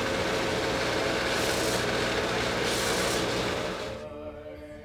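Stationary belt sander running with a steady hum while a small block of wood is pressed against the belt, the grinding rasp swelling twice, about a second and a half in and again about three seconds in. The noise dies away about four seconds in.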